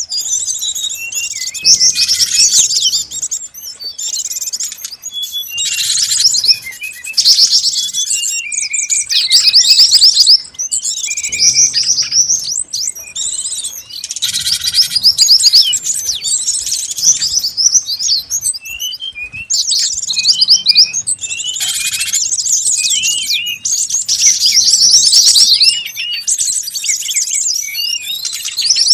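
A busy mix of small songbirds chirping and trilling over one another without pause, high-pitched and fast: a bird-lure recording that combines the calls of several species such as flycatchers, white-eyes and tits.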